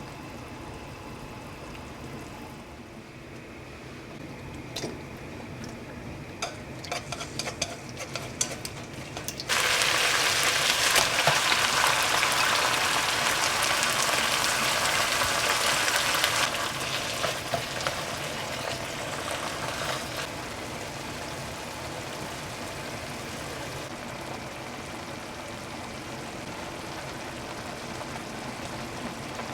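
Food frying in a hot pan: a few clicks of utensils, then a loud sizzle starts suddenly about ten seconds in, as if ingredients have just gone into hot oil. It stays loud for about seven seconds, then dies down to a quieter steady sizzle.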